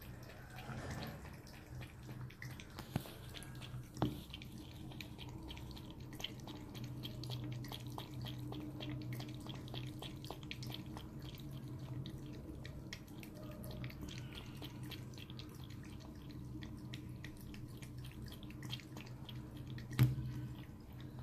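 Cat lapping water from a cup: a fast, even run of small wet clicks and drips, with one sharper knock near the end.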